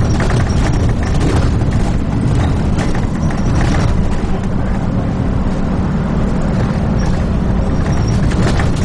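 Dennis Trident 2 double-decker bus heard from inside while under way: a steady low diesel engine and road noise, with a few short rattles from the body.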